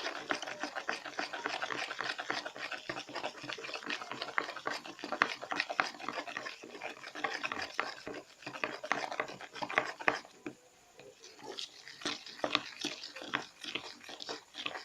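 Spoon stirring a thick, sticky slime of white glue and Tenys Pé powder in a container, a dense run of wet squelching clicks, pausing briefly about ten seconds in before resuming. The mix is starting to pull away from the container as it thickens.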